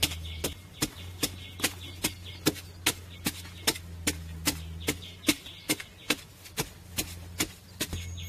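Hand digging tool chopping into earth in rapid, evenly spaced strikes, about two and a half a second, over a steady low hum.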